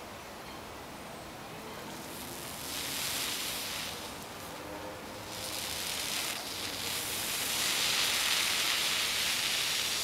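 Potassium permanganate and powdered sugar mixture hissing as its exothermic oxidation takes off, in swells that grow louder toward the end.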